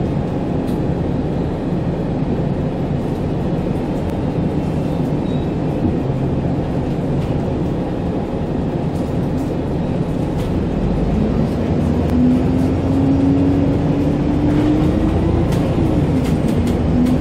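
Cabin sound of an Alexander Dennis Enviro200 MMC diesel bus under way: a steady low engine and road rumble. About two-thirds of the way in it grows louder and a drivetrain whine climbs in pitch as the bus accelerates, then drops suddenly near the end, as at a gear change, and carries on at the lower pitch.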